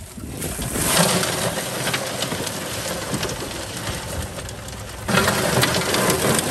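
Live crawfish dumped from a mesh trap into a metal sorting box, a dense clatter and rattle of shells on metal that gets louder about five seconds in as more of the catch pours in.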